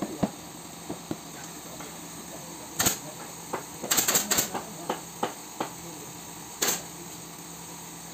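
Pneumatic upholstery staple gun firing staples through fabric into a wooden sofa frame, each shot a sharp snap with a hiss of air. One shot, three in quick succession about a second later, then one more near the end, with lighter clicks and taps between.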